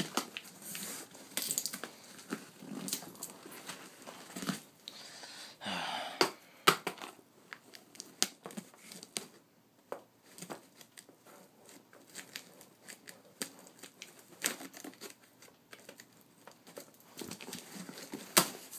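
Clear packing tape on a cardboard box being slit and torn off by hand, with crinkling of the tape and scrapes and knocks on the cardboard in irregular short bursts, including one longer rasp about six seconds in.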